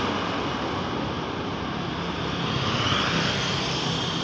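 Roadside traffic noise: a steady rush of engine and tyre sound from a bus pulling away and approaching motorcycles and cars.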